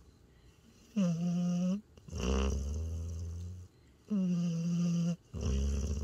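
Border collie–Australian shepherd mix snoring in deep sleep. Starting about a second in, there are two breath cycles, each a short pitched snore followed by a longer, lower snore.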